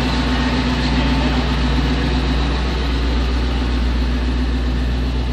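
A large engine idling steadily, a continuous low hum.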